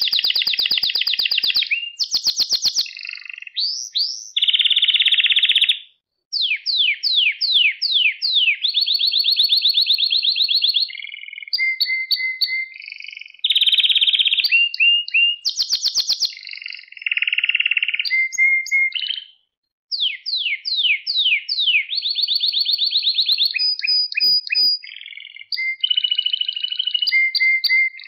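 Male domestic canary singing a long, varied song of repeated tours: buzzy trills and rolls, fast repeated notes, and runs of quick falling whistles. The song stops twice for a brief pause.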